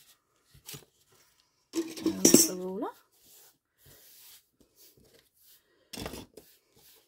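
Small clicks and knocks of craft tools and ribbon being handled on a tabletop. About two seconds in there is a louder clatter that ends in a short rising squeak, and there is another knock about six seconds in.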